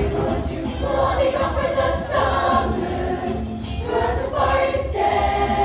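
A large young show choir singing together over an accompaniment with a steady, pulsing low beat.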